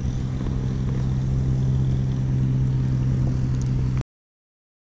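A steady, unchanging engine hum over a noisy wash, which cuts off abruptly into complete silence about four seconds in.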